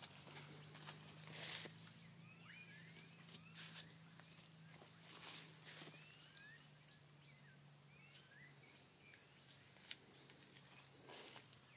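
Footsteps and rustling through undergrowth, with a bird giving a run of short, quick chirps for several seconds in the middle, over a faint steady low hum.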